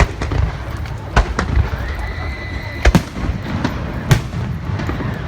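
Fireworks going off: about six sharp bangs in quick succession over a continuous low rumble. A steady high whistle lasts about a second just before the loudest pair of bangs.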